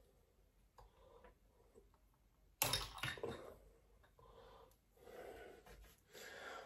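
A man's breathing while he works, in soft breathy exhales, with a sudden loud burst of noise about two and a half seconds in.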